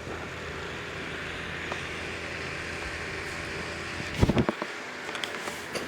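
A vehicle engine runs with a steady low hum. A heavy thump comes about four seconds in, and the low hum cuts off after it.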